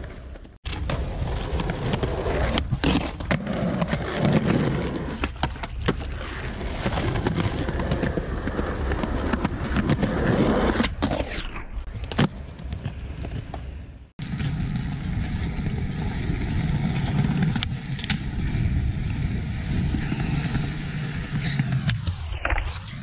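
Skateboard wheels rolling on asphalt and concrete, with sharp clacks as the board is popped and lands tricks. The rolling breaks off abruptly twice, where one clip ends and the next begins.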